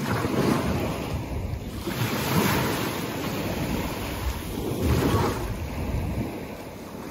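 Wind buffeting the microphone over small waves lapping in shallow sea water, swelling and easing in gusts.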